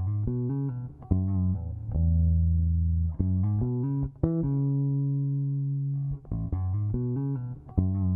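Background music: a plucked, guitar-like melody playing short runs of notes between long held low bass notes.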